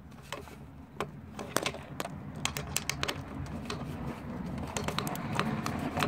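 Socket ratchet with a 10 mm socket clicking in quick, uneven runs as a bolt is worked tight.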